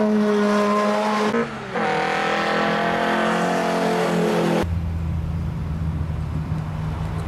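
Honda Civic hatchback engine running at high revs as the car passes on a wet track, with the hiss of tyre spray. It is followed by a second high-revving car pass, then by a car engine idling low and steady from about four and a half seconds in.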